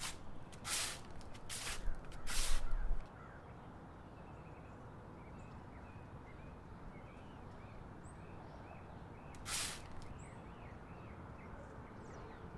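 Outdoor ambience: birds chirping faintly over a steady background hiss. A few short swishing noises come in the first three seconds and one more near the end.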